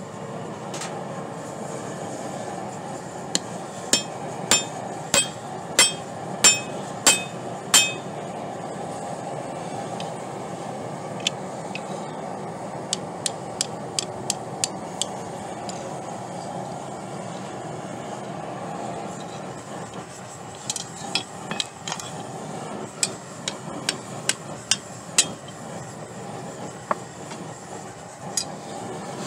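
Steel hammer striking rebar on a Doyle steel anvil, each blow ringing: a run of about eight heavy blows a little over a second apart, then lighter taps, then another uneven run of blows near the end. Under it runs the steady roar of a gas forge burner.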